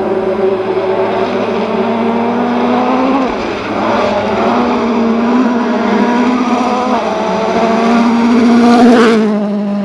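Ford Fiesta RS WRC rally car's turbocharged four-cylinder engine at full throttle on gravel, revving up through the gears with the pitch dropping at each upshift. It grows louder as the car approaches and is loudest as it passes close near the end.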